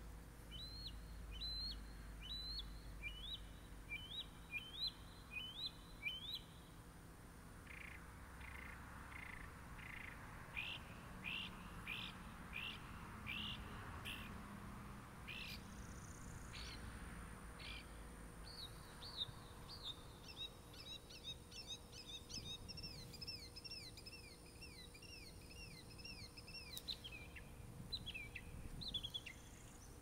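Small songbirds singing: a string of short rising chirps, then a run of quick separate notes, and in the second half a long, fast series of repeated slurred notes.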